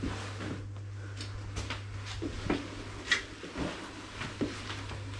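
Irregular footsteps and light knocks in a small room, roughly one every half second to second, the sharpest a click about three seconds in, over a steady low hum.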